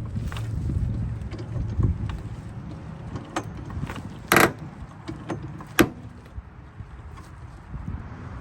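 Car being raised on a jack: scattered metallic clicks and clanks from the jack and lifting gear, loudest a short harsh clank about four seconds in and a sharp click near six seconds, over a low hum that fades in the first two seconds.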